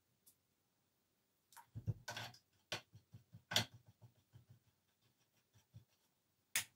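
A watercolour brush being handled at the water pot and palette: a run of light taps and clicks, with a brief scraping rustle about two seconds in and a sharper click near the end.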